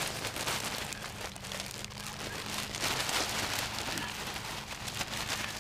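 Topsoil pouring out of a large plastic bag onto cardboard and loose soil, a rustling, crackly patter with the plastic bag rustling, swelling louder about a second in and again around three seconds in.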